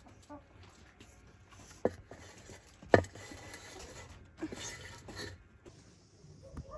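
A metal basin pushed about with a poker in a tandoor's bed of ash and embers: a few separate knocks, the sharpest about three seconds in, and short scraping rustles a little later.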